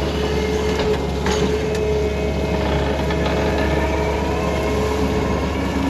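An engine running steadily at a constant speed: a deep, even rumble with a steady hum over it, with no change in pitch.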